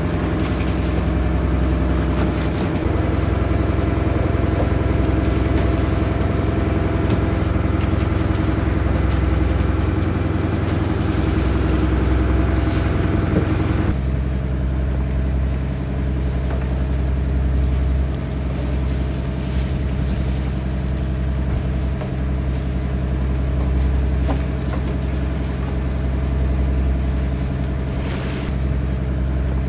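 A boat's engine running steadily. About halfway through its note changes abruptly: several of the higher tones drop out and it settles into a lower, steadier hum.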